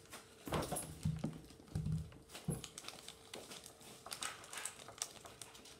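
A plastic packet being handled and pulled at by hand, crinkling and rustling, with four dull thumps in the first half.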